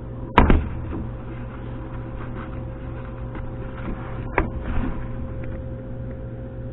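Two sharp knocks about four seconds apart, typical of items or a drawer being handled in a refrigerator, over a steady low hum.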